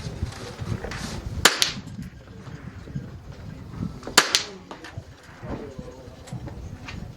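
.22 LR rifle fired twice, about two and a half seconds apart, each sharp crack followed a split second later by a fainter tick of the bullet striking a small steel target.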